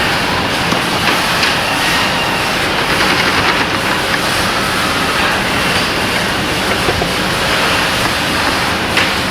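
Loud, steady mechanical rattle and hum of machinery running continuously.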